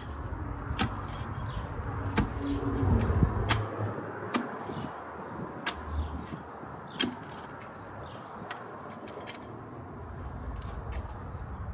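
Digging tool striking and scraping hard, compacted soil, with a sharp knock roughly every second for the first seven seconds, then fainter ticks.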